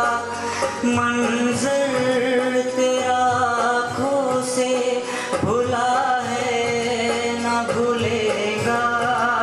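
A man sings an Urdu tarana (anthem) solo into a microphone, with long held notes that glide up and down in pitch.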